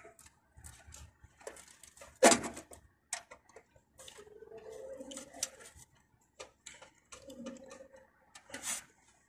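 Irregular sharp clicks and taps of a screwdriver and wire ends against the metal terminals of an air-conditioner unit's control panel during thermostat wiring, the loudest about two seconds in.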